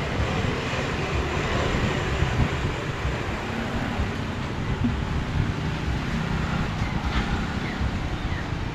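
Steady rumbling background noise with a faint low hum running under it.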